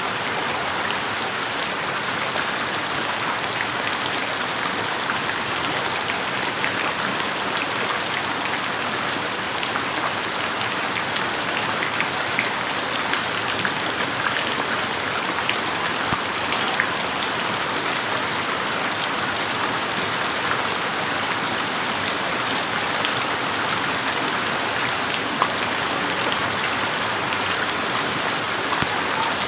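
Steady rainfall, a continuous hiss of rain with scattered individual drop clicks.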